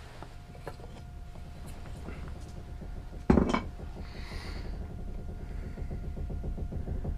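A low hum swelling steadily louder, with one sharp clattering knock about three seconds in and a brief hiss just after it.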